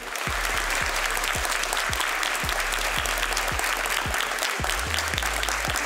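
Audience applauding, a dense clapping that breaks out all at once. Underneath runs music with a low steady beat of about two thuds a second.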